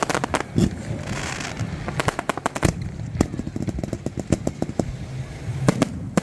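Fireworks going off: a rapid string of sharp bangs and crackles over a low rumble, with one louder bang about two and a half seconds in.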